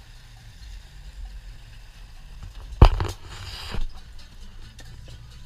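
A loud thump on the boat about three seconds in, followed by about a second of hissing noise and a smaller knock, over a low steady rumble of the idling boat.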